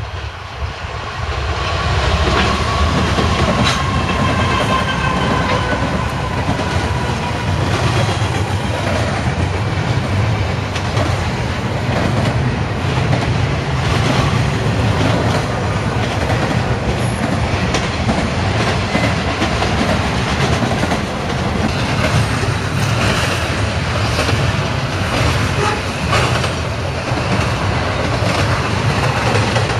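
Norfolk Southern diesel-led freight train passing close by. It grows loud about a second and a half in as the locomotives go past with a whine that slowly falls in pitch. Then comes the steady rumble and rattle of double-stack intermodal cars, with the clickety-clack of wheels over rail joints.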